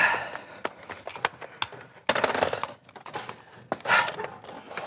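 Scattered clicks and clatter of old computer equipment being handled on a wooden desk: a CRT monitor set down and a keyboard tapped.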